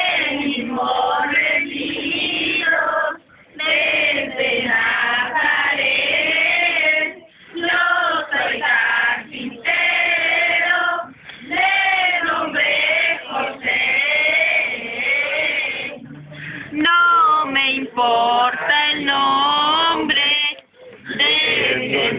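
A group of men, women and children singing together in phrases, a posada song sung by the candle-holding crowd.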